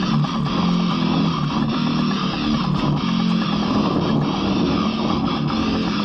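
Background music led by guitars, playing steadily throughout.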